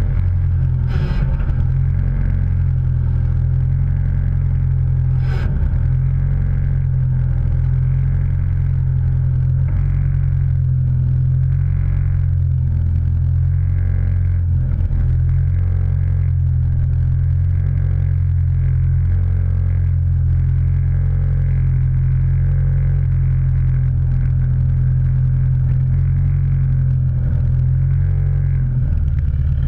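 Motor vehicle running with a steady low drone, with two brief clicks about one and five seconds in.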